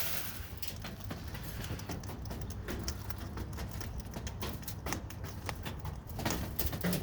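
Birds pecking at a pile of seed, their beaks tapping on the hard surface in quick, irregular clicks.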